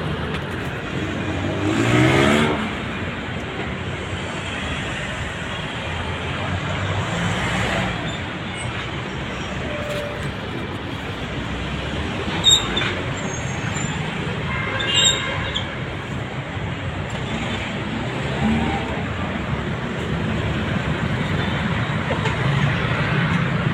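Busy city road traffic: a steady din of passing vehicles, with one vehicle passing close and loud about two seconds in. Two short, sharp high-pitched sounds stand out about halfway through.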